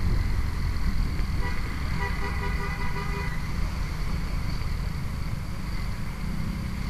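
Vehicle horn sounding for about two seconds, starting about a second and a half in, over the steady rumble of wind and engine noise from riding a motorcycle.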